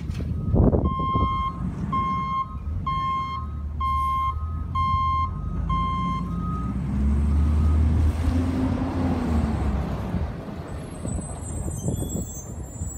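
Garbage truck reversing: its backup alarm gives six steady beeps about a second apart, then the truck's engine revs, rising in pitch, as it moves off. A sharp knock just under a second in, and a thin high squeal near the end.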